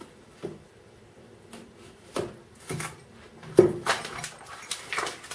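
A kitchen knife blade scraping and tapping against a cardboard box as it slits open the box's end flap: a string of short scrapes and knocks, the loudest about three and a half seconds in.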